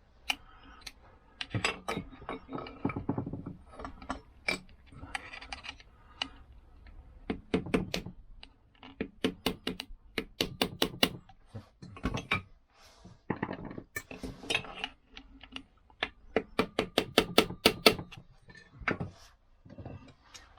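Hand tools clicking and clinking on metal in quick runs as bolts on a Lambretta scooter's engine casing are tightened.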